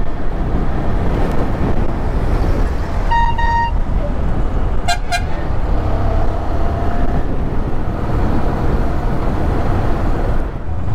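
Motorcycle riding through town traffic, its engine and wind noise running steadily. A vehicle horn gives two short beeps about three seconds in, and a second, different-pitched horn sounds briefly about five seconds in.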